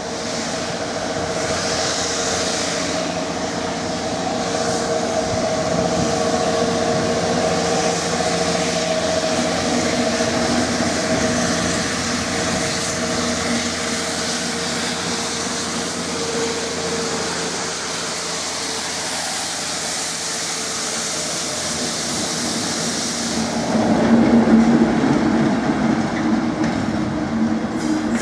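Two class 73 electro-diesel locomotives top-and-tailing a tank-wagon railhead treatment train run through at speed. There is a steady drone with held tones and a high hiss, and the wagons rumble over the rails; it grows louder about three-quarters of the way through as the rear end passes.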